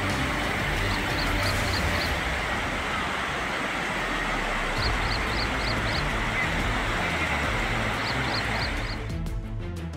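Floodwater of a swollen river rushing past in a steady, loud roar, with a short run of high chirps recurring about every three and a half seconds. Near the end the water sound cuts off and music with a beat comes in.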